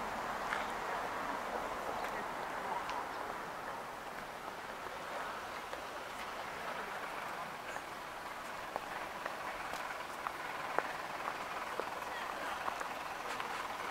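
Outdoor street ambience: a steady murmur of distant voices and passing traffic, with a few light clicks in the second half.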